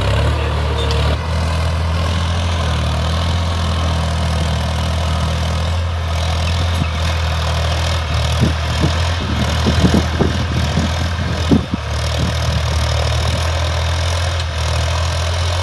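New Holland 3600 tractor's diesel engine running steadily while it pulls a tine cultivator through the soil, with a few brief knocks and rattles between about 8 and 12 seconds in.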